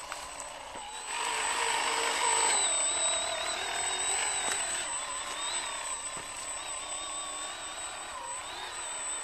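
Homemade RC 6x6 truck's drive motors and gearing whining as it crawls over loose dirt carrying a load of sandbags. The whine wavers in pitch with the load and gets louder about a second in.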